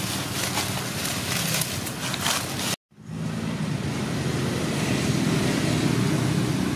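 Steady low rumble and hiss of outdoor background noise, with a few faint crackles in the first part. The sound cuts out to silence for a split second about three seconds in, then the steady noise resumes.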